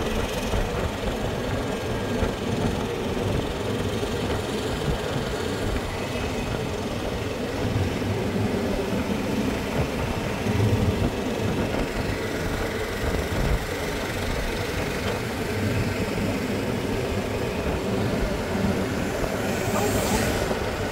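A golf cart riding along a paved road: a steady rumble of tyres and body rattle, with wind noise.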